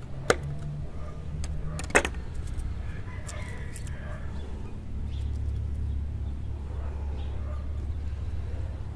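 Two sharp taps, a third of a second and two seconds in, with a few faint clatters after them, as a knife and succulent cuttings are handled on a wooden board table. A steady low rumble runs underneath.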